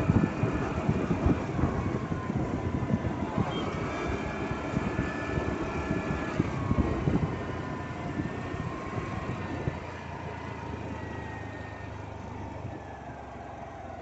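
Wind buffeting the microphone on a moving scooter, over the scooter engine's running with a faint whine that glides up and down in pitch. The rush grows steadily quieter through the second half.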